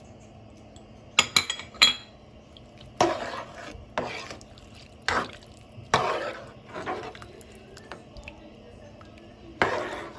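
A spoon knocks sharply against a cooking pot a few times, then stirs through rice, potatoes and chillies in boiling water with irregular scraping and sloshing strokes.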